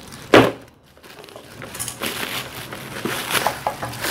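Plastic courier mailer bags crinkling and rustling as a parcel is handled, after a single sharp thump a moment after the start.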